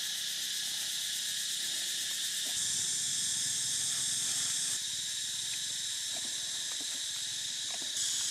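Steady high-pitched drone of forest insects, stepping louder and quieter a few times.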